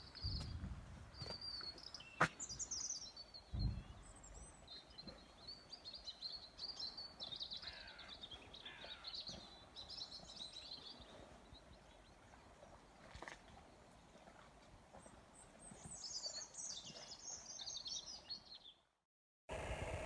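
Faint birdsong from several small birds, chirping and twittering, ending in a falling trill near the end. A sharp click comes about two seconds in and a low thump a moment later.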